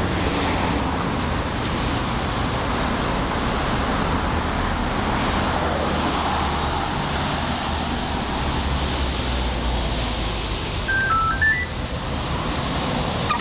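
A steady low hum and hiss, and about eleven seconds in a short run of electronic beeps from the smart key and remote-start alarm system, stepping up in pitch as a brief melody.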